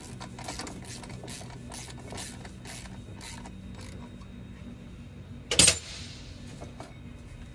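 Ratchet wrench clicking in short irregular runs as timing gear bolts are turned out. About five and a half seconds in there is one loud metallic clank with a ringing tail.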